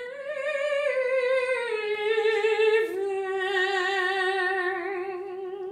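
A soprano voice singing without words: one long held note with vibrato, then a step down to a lower note about three seconds in, also held with vibrato.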